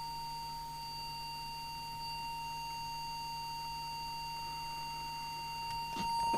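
Steady 1 kHz test tone from an audio oscillator, used as the modulating signal while setting an FM CB transmitter's deviation, with a low hum beneath it. The tone gets louder near the end.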